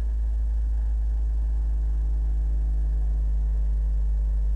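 Car audio subwoofers playing a loud, steady, very deep bass tone that holds without change.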